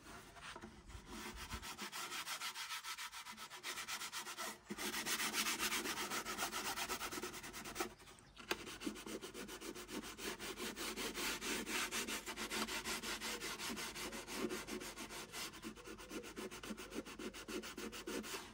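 P600 abrasive paper rubbed by hand over the bare wood of a handmade viola, in rapid, even back-and-forth strokes with two short pauses, about four and a half and eight seconds in. It is the final sanding of the body before the finish goes on.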